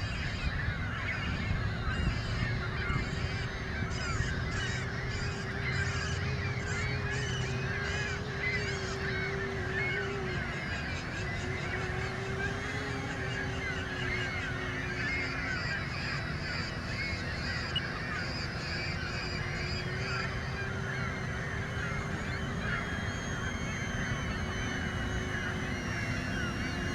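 A large flock of birds calling continuously, a dense chorus of honking calls, with a steady droning tone underneath that wavers in pitch, typical of an RC aircraft's motor.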